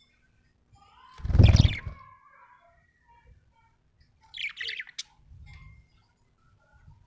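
Budgerigar chirping and warbling in short, varied calls, with a bright burst of chirps about four and a half seconds in. The loudest sound is a brief noise about a second and a half in that includes a low thump.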